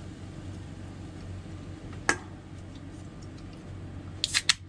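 Aluminium 7-Up soda can's pull-tab cracking open near the end, a quick run of sharp snaps. A single sharp click comes about two seconds in, over a steady low hum.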